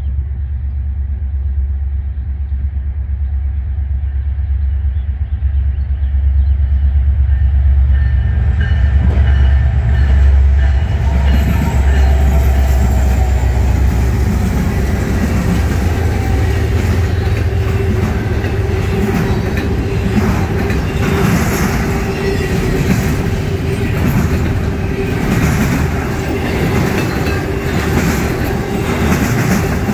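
Norfolk Southern stack train passing: the diesel locomotives approach with a deep engine rumble and go by about ten seconds in, then the steady rumble and rhythmic clicking of the intermodal cars' wheels on the rails.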